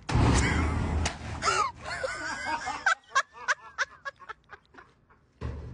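A loud blast inside a metal dumpster, booming for about a second, followed by people laughing in bursts. There is a dull thud near the end.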